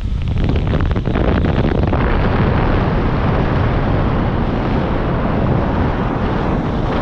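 Loud wind rushing over the camera microphone under a parachute canopy, rising sharply at the start and then holding steady, with a buffeting flutter in the first two seconds.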